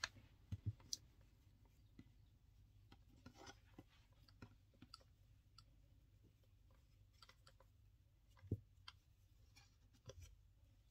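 Near silence with faint, scattered clicks and taps of hands handling macrame cord around a metal keychain clasp on a wooden table, with a few slightly louder knocks, near the start and towards the end.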